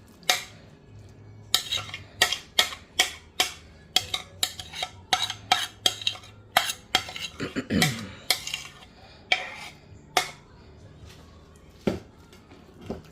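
A spoon knocking and scraping against cookware as a stirred mixture is scooped out into a casserole dish. There are about two sharp knocks a second for most of the stretch, with a short downward-sliding scrape in the middle, then a couple of last knocks near the end.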